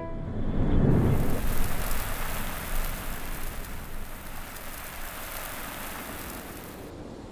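Title-card sound effect: a low rumble about a second in, then a steady rain-like hiss that slowly fades out.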